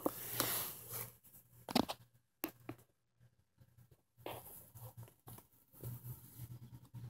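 Quiet handling noise: soft rustling and brushing, a few sharp little clicks around two seconds in, and more soft rustling near the end, over a faint low hum.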